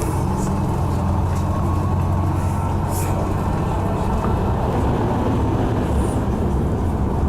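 Tour bus running along the road: a steady low engine drone with road noise.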